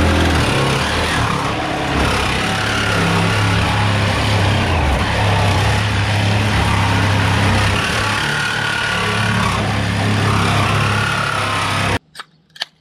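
Cordless power saw cutting through the thin aluminum hull of an old rowboat, a loud continuous rattling run that cuts off abruptly near the end.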